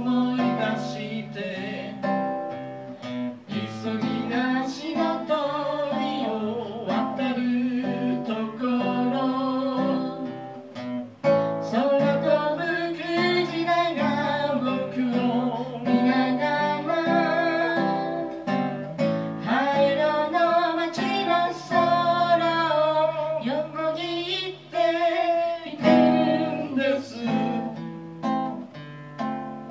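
A man singing to his own acoustic guitar accompaniment, the guitar strumming and picking chords under a sung melody.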